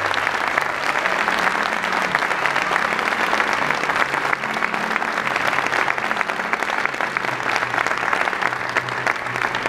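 Audience and performers applauding: many hands clapping steadily, with no break.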